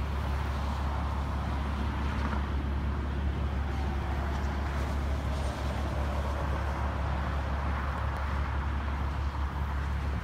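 Steady low rumble of a vehicle on the move along the highway: road and engine noise, even in level throughout.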